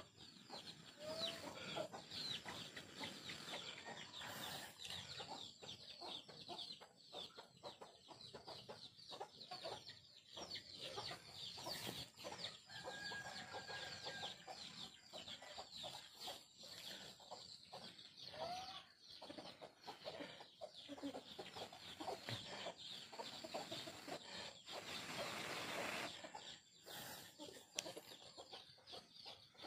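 Chickens clucking, over a dense run of short high chirps. Near the end there is a rustling hiss that lasts about a second.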